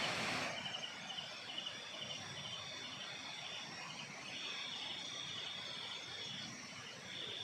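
Night insects such as crickets chirping in a high, thin trill, first in quick pulses several times a second and later as a steadier run, over a faint outdoor hiss. A brief hiss sounds in the first half second.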